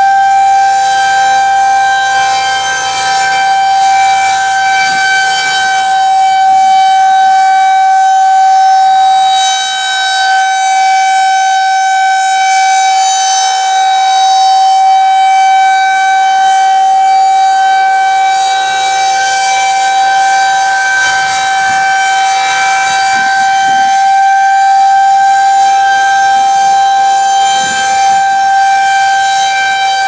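Federal Signal 2001-130 rotating outdoor warning siren sounding a steady single tone at full speed, its pitch held level. The loudness swells and dips gently as the turning horn sweeps past.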